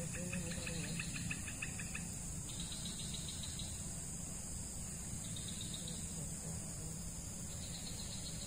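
Insects calling: a steady high-pitched drone with repeated bursts of rapid chirping every couple of seconds, over a low steady background rumble.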